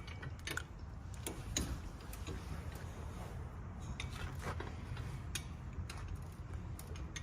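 Scattered light clicks and knocks, irregularly spaced, from hand tools and metal parts being handled during suspension work, over a low steady rumble.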